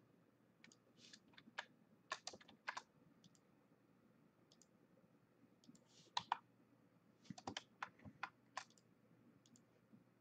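Faint, irregular clicks of a computer mouse's left button, some in quick pairs and clusters.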